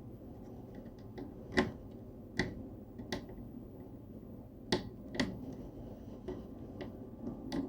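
Sharp, irregular clicks and light taps of hands handling parts inside an iMac while fitting its power supply and connector, about six louder clicks, the loudest about one and a half seconds in.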